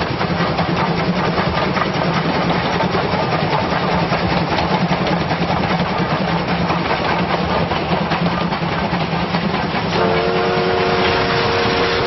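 Steam locomotive running at speed, its running gear and exhaust making a dense, rapid clatter. About ten seconds in, its steam whistle sounds a steady chord of several tones and holds it.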